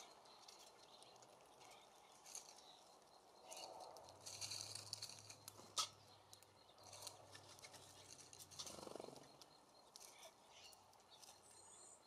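Faint, scattered high chirps of small songbirds, with one sharp click about halfway through.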